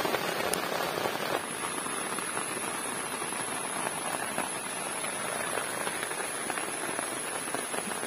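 Steady rain falling on grass and leaves: an even hiss made of many small drop ticks.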